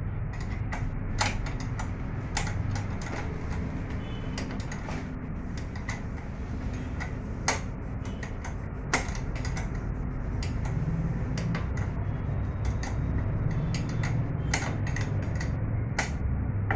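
A metal spanner clicking and clinking irregularly against the mounting bolts at the base of a Honda EP1000 generator's frame, with two sharper knocks about 7.5 and 9 seconds in, over a steady low rumble.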